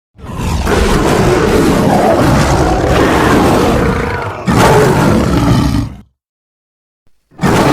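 Creature roar sound effects: a long rough roar of about four seconds, cut straight into a shorter, louder roar, then a gap of silence before another roar starts near the end.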